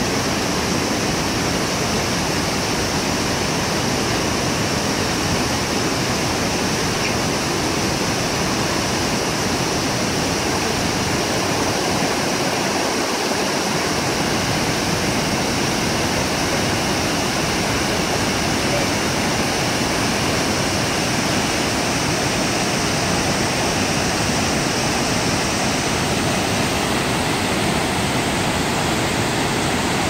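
Kegon Falls and the rocky cascades below it: water falling and rushing in a loud, steady, unbroken roar.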